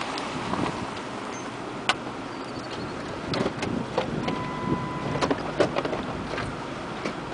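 Steady rushing noise of wind on the microphone, with scattered clicks and knocks. A steady beep lasting about a second comes a little over four seconds in.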